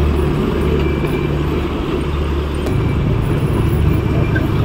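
Motorcycle engine running steadily at low road speed, with wind rushing over the microphone.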